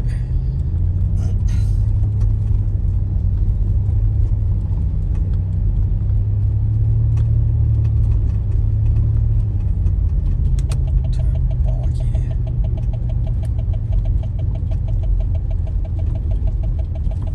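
A motor vehicle's engine running with a steady low rumble. About two-thirds of the way through, a fast, even ticking starts and carries on.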